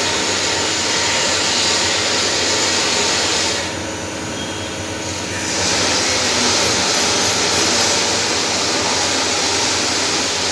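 CNC machine cutting chuck jaws: a steady hissing machining noise. It drops in its upper range for about two seconds in the middle, then comes back.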